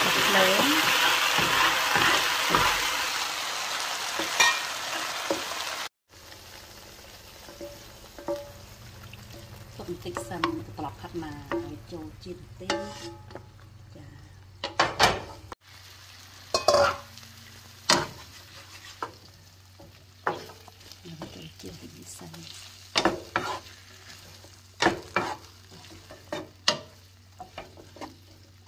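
Minced garlic and chili sizzling loudly in a hot nonstick frying pan as they are stirred with a wooden spatula. The sizzle cuts off about six seconds in. After that there is a quieter stretch with a steady low hum and scattered knocks and scrapes of the wooden spatula in the pan.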